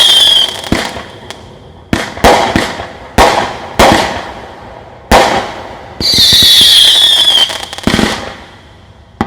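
200-gram consumer firework cake firing: a string of sharp bangs from launches and breaks, spaced from a fraction of a second to over a second apart. A shrill whistle falling in pitch sounds for over a second about six seconds in.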